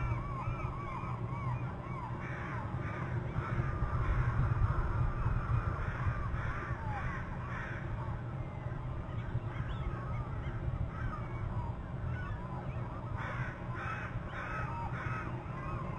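Wild birds calling: repeated harsh calls, about two a second, in two bouts, the second near the end. They sit over a background of many short overlapping calls and a steady low rumble.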